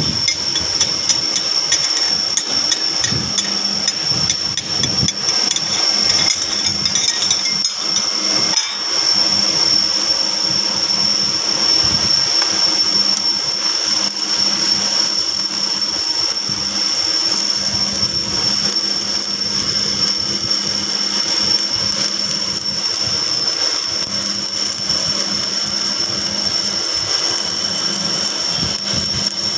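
Stick-welding arc crackling and sizzling steadily as the electrode lays a bead joining a steel shaft to a steel plate, with a steady high-pitched whine underneath.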